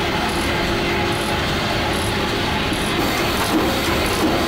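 The ship's original steam-driven water pump, a small steam engine without a flywheel coupled to a pump, running and clattering steadily. A short high-pitched sound repeats a little faster than once a second.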